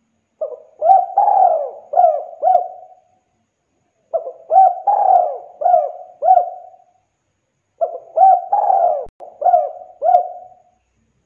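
Spotted dove cooing: three phrases of four or five coos each, about a second apart.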